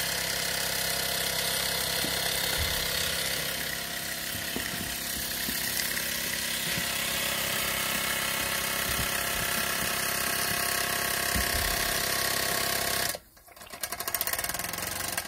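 Mamod SR1 live-steam model steam roller's single oscillating-cylinder engine running fast and steady, performing well. About two seconds before the end the sound drops off abruptly, and a quick run of clicks follows.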